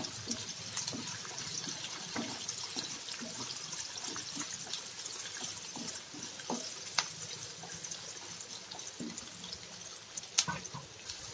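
Sliced onions, garlic, green chillies and curry leaves sizzling in hot oil in a kadai as they are sautéed, with a spatula scraping and knocking against the pan now and then. A sharper knock comes about ten seconds in.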